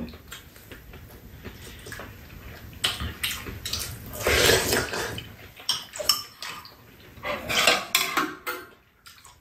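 Metal spoons and chopsticks clicking and clinking against bowls and a metal serving tray during a meal, with mouth noises of eating and slurping from a spoon, loudest about four seconds in.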